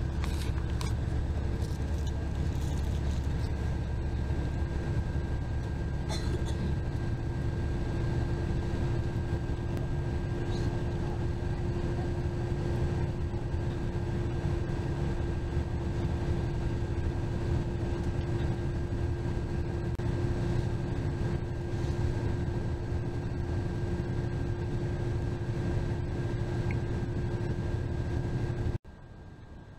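Steady engine and road rumble inside a bus cruising on the interstate, with a constant hum over it. A few light clicks sound in the first seconds, and the rumble drops off suddenly about a second before the end.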